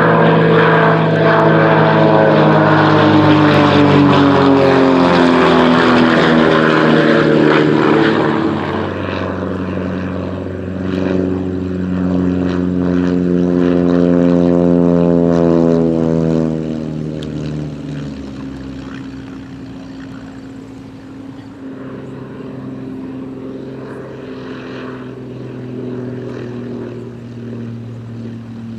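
Propeller airplane engine passing close, loud at first, with its pitch gliding downward as it goes by. It swells again about twelve to sixteen seconds in, then fades into the distance.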